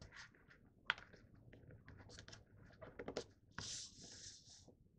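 A sheet of printer paper being folded and creased by hand: faint rustling and crackling, with a sharper crackle about a second in and a longer rustle starting about three and a half seconds in.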